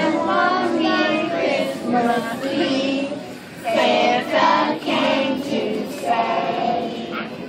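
A group of young children singing a song together as a choir, in phrases with a brief break about three and a half seconds in.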